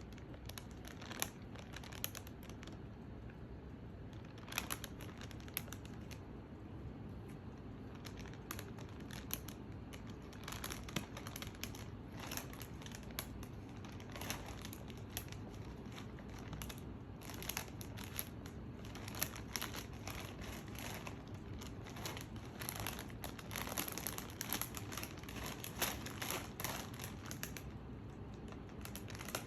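A chip packet crinkling and rustling in irregular bursts as a dog with its head inside the bag roots around eating the chips. The crinkling is busiest in the second half.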